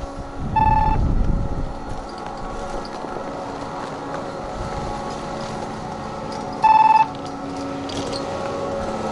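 Anzen Sakudo pair lift's boarding chime sounding twice, each a very short high electronic trill, about six seconds apart. A steady mechanical hum from the running lift lies under it, with a low rumble around the first chime.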